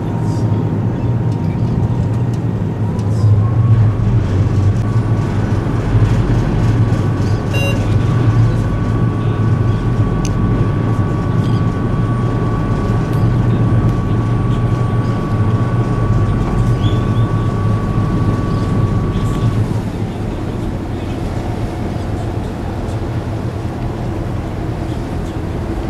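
Car ferry's diesel engines running with a steady low drone, mixed with wind and water noise. A thin steady whine rides on top, stepping up slightly in pitch about three seconds in and stopping about twenty seconds in.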